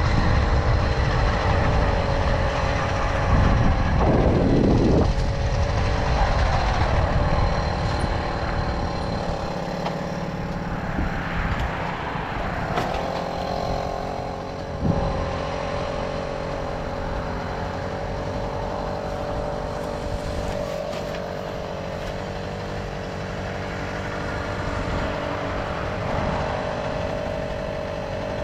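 Tomos Silver Bullet moped's small two-stroke engine running at a steady pitch while riding, with heavy low wind rumble over the first third that then eases off. A short knock comes about halfway through.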